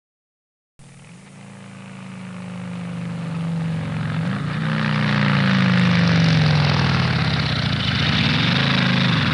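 Car engine running, fading in abruptly after a moment of silence and growing steadily louder over several seconds, its pitch rising about four seconds in and dipping again near the end, with a hiss over it.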